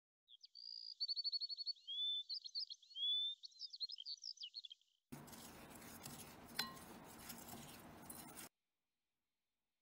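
A bird singing for the first half: a fast trill and then a string of chirps and rising whistled notes. Then a wooden spoon stirs oats and cocoa powder in a glass bowl, a dry scraping rustle with one clink against the glass about six and a half seconds in, before it cuts off.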